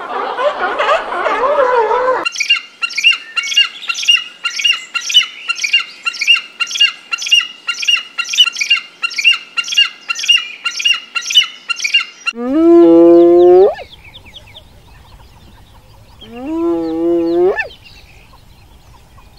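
Fur seals bleating and barking together for the first two seconds. Then eagles give a fast series of sharp, high calls, about two a second, for about ten seconds. Then a spotted hyena gives two rising whoops, each about a second long.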